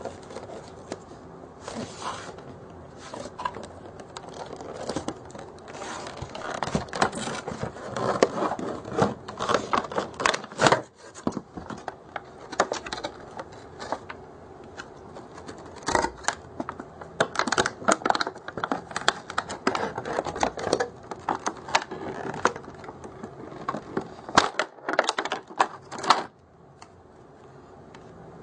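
Packaging and small plastic parts being handled: irregular clicks, taps, scrapes and rustles, which stop shortly before the end.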